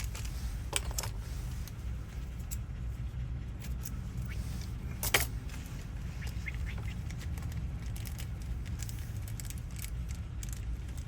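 Small metal lock parts clicking and clinking as tumblers are handled and fitted into a door lock cylinder during rekeying, with one sharper click about five seconds in. A steady low hum runs underneath.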